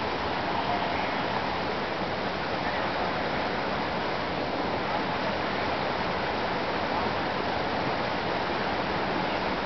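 Mountain creek rushing, a steady, even rush of water with no breaks.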